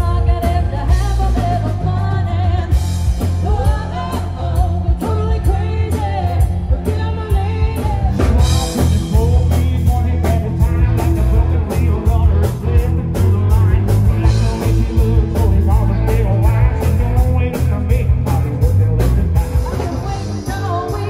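Rock band playing live: a lead singer over electric guitar, bass guitar and a drum kit keeping a steady beat.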